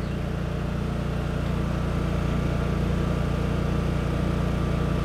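A steady low engine hum, even and unchanging, like a motor idling.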